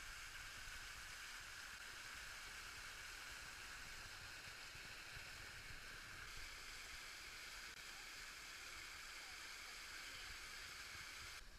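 Small river waterfall rushing steadily over rocks, heard close up; the sound drops away abruptly near the end.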